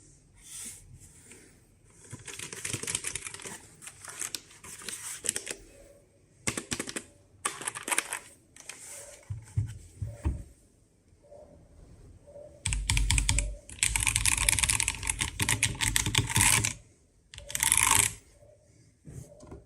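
Typing on an Akko 5075B Plus mechanical keyboard: bursts of rapid key clicks with short pauses between them. The longest and loudest flurry comes about two-thirds of the way through.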